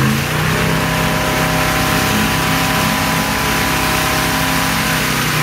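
Boat engine running steadily at a constant pitch while it tows a wakesurfer, over the hiss and rush of the wake's churning water.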